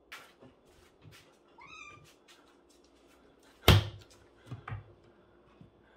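A tabby kitten gives one short, rising meow. A little past halfway comes a loud thump, then a few lighter knocks, as the kitten leaps and paws at the wall after a moth.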